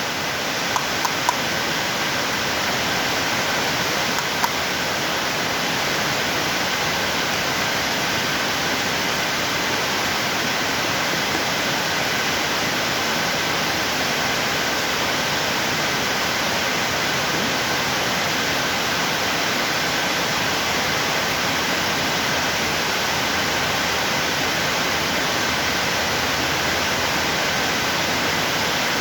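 National NC470M coffee mill and drip coffee maker running with a steady, even rushing noise and faint high hum, a few light clicks near the start.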